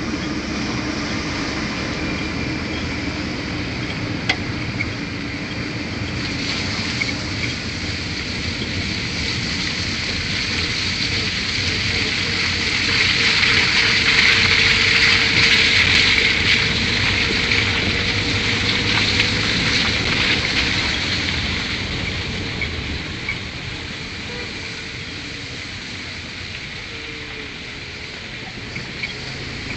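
Steady rumble and rushing noise of a vehicle driving along a rough road, growing louder for several seconds in the middle and then easing off.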